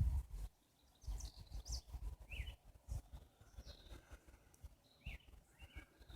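Wild birds singing and chirping, with scattered short calls and quick sliding notes. Under them is a choppy low rumble on the microphone.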